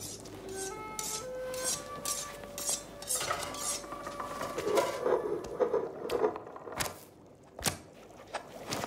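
Kitchen utensil sounds: a run of short scraping strokes, about two or three a second, then pots and cutlery clattering and a few sharp clinks near the end.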